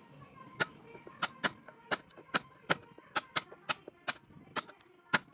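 A series of sharp taps at an uneven pace, about two to three a second.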